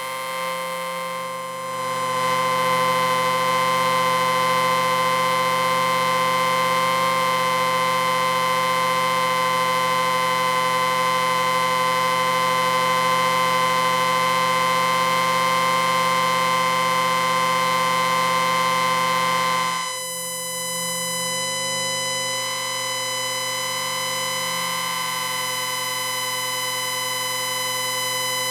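Electrical interference sound effect: a steady, distorted electric buzz made of many stacked tones. It swells louder about two seconds in, then drops suddenly to a thinner, quieter buzz about twenty seconds in.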